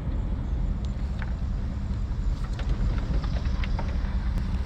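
Steady low rumble of a vehicle running, with a few faint light ticks scattered through it.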